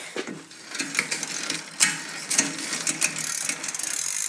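Ride1Up Cafe Cruiser e-bike drivetrain turned by hand: chain running over the rear cogs and derailleur, with the rear hub's ratchet clicking rapidly as the wheel spins. This is a shifting check while the rear derailleur is being adjusted.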